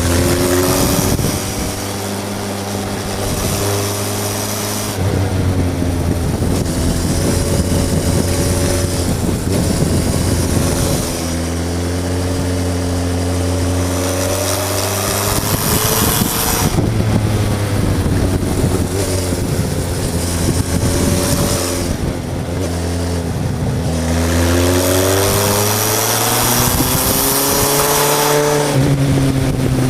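Suzuki GSF 1200 S Bandit's inline four-cylinder engine under way through a Hurric aftermarket exhaust, its pitch climbing under acceleration and dropping back several times with gear changes and on the overrun. Wind rushes over the microphone at speed.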